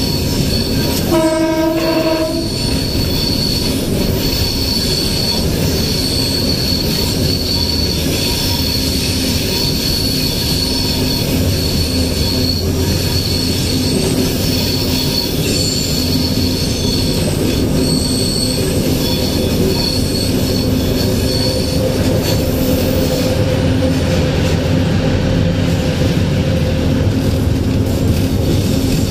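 Pakistan Railways diesel locomotive running along the line, heard from its front hood: a steady engine and rolling-wheel rumble with a high, steady squeal of the wheels. One short horn blast sounds about a second in.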